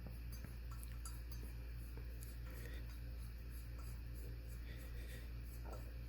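Faint small metallic clicks and scrapes as the bearing support cage bolt is screwed by hand into the RMAX 1000's CVT secondary sheave, over a steady low hum.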